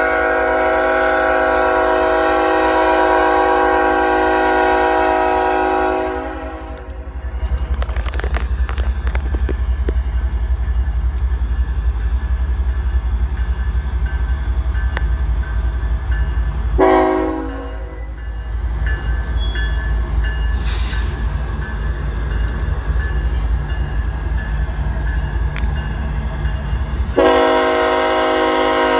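Locomotive air horn sounding a long blast of about six seconds, a short blast about seventeen seconds in, and another long blast starting near the end. A steady low rumble of the passing train runs underneath.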